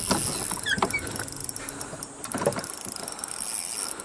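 Spinning reel being worked while a large bass is played on light line: scattered clicks and a few short squeaks about a second in, with a steady high-pitched drone in the background.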